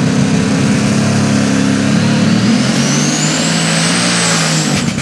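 Open super stock pulling tractor's turbocharged engine running loud and revving at the starting line. A high whine rises in pitch over the second half as the turbo spools up.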